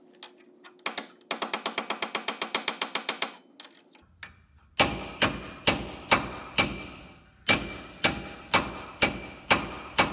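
Hammer striking a brass drift to drive a new knuckle bearing race into a Toyota solid front axle steering knuckle, metal ringing on each strike. A quick run of light taps comes about a second in, then a short pause, then louder blows at about two a second.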